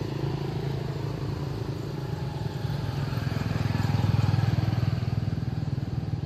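Small engine running steadily with a low, rapidly pulsing hum that grows louder about four seconds in.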